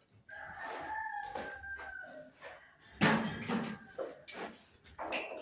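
A rooster crowing once, a drawn-out call of about two seconds that falls slightly at the end. About three seconds in come louder knocks and clatters, and another just before the end.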